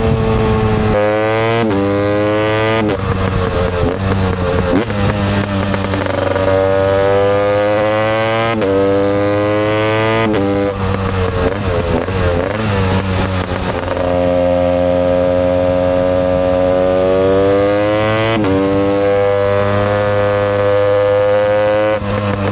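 2020 Husqvarna TE 250i single-cylinder two-stroke engine running hard under way, its pitch repeatedly climbing and then dropping back sharply, with a long, gradual climb in the second half.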